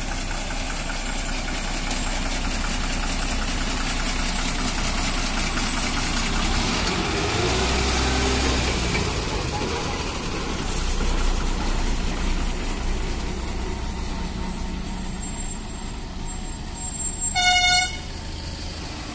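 Diesel engine of a Tata container lorry running at low speed as it turns, with a deeper rumble about seven to nine seconds in. Near the end comes one short horn toot of about half a second.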